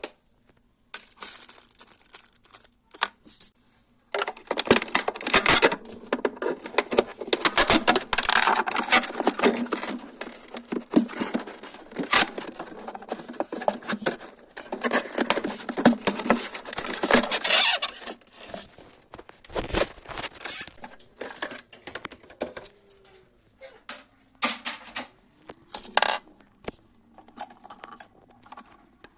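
Handling noises from repair work: dense rustling, scraping and clicking for about fourteen seconds, then scattered clicks and short scrapes, over a faint steady hum.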